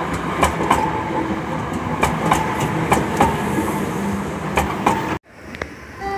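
Nuremberg U-Bahn DT1 train passing close by: a steady rumble of wheels on rails with many irregular sharp clicks and clacks. The sound cuts off suddenly about five seconds in.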